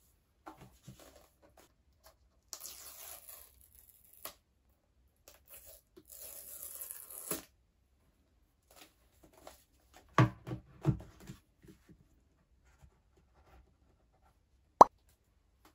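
Paper seal strips torn off a new iPhone box: two tearing rips, each lasting a second or more. Then a few knocks as the box is handled on the desk, and a single sharp tap near the end.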